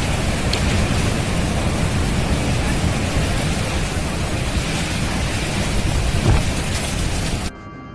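Thunderstorm: a steady roar of heavy rain and wind, with a sharp thunderclap about six seconds in. It cuts off abruptly near the end.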